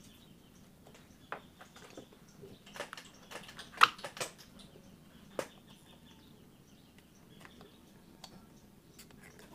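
Faint scattered clicks and light taps as a CRT TV main board and soldering iron are handled while the B+ electrolytic capacitor is being desoldered, the loudest tap near the middle.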